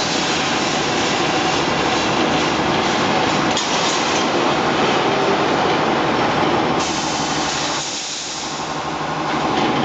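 Automatic steel mesh welding line running: a dense, steady mechanical clatter and hiss from the line-wire feed, welding heads and mesh traction. It eases briefly about eight seconds in, then picks up again.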